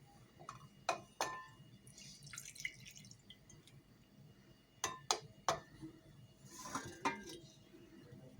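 Boiled pine cones and their cooking water being strained: a few sharp clinks of kitchenware, in twos and threes, with short spells of liquid trickling and dripping.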